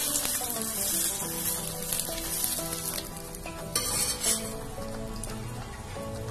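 Stuffed paratha shallow-frying in oil on a flat tawa, sizzling steadily, louder for a moment about four seconds in.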